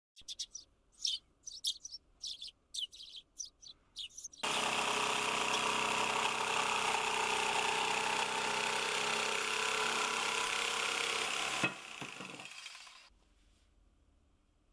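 Birds chirping in short high calls, then about four seconds in an electric jigsaw starts cutting a wooden board and runs steadily for about seven seconds. Near the end it is switched off with a click and winds down.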